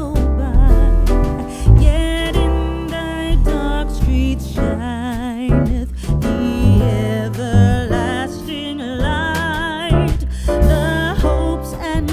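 Background music: a song with a singing voice over guitar and a strong bass beat.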